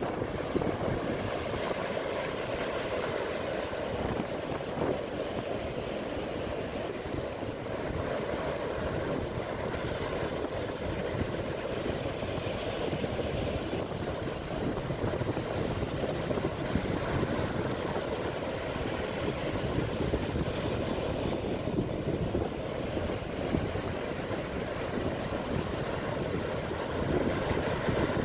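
Small sea waves breaking and washing up a sandy beach, a steady rush of surf, with wind on the microphone.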